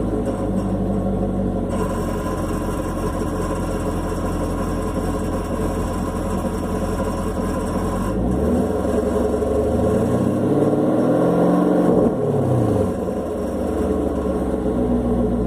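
Chevrolet Camaro SS's 6.2-litre V8 idling, then revved once: about eight seconds in the pitch climbs for some four seconds and drops back to idle. The car has an exhaust rattle that the owner guesses comes from the AFM valve.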